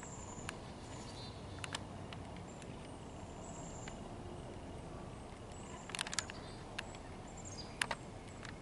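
Faint outdoor ambience: a steady low background with a few short, high chirps and several sharp clicks about six and eight seconds in.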